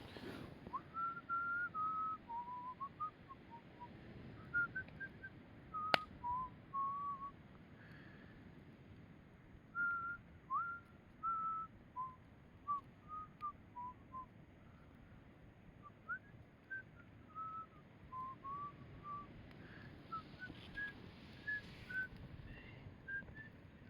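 A person whistling a slow tune in short notes that step up and down. There is one sharp crack about six seconds in.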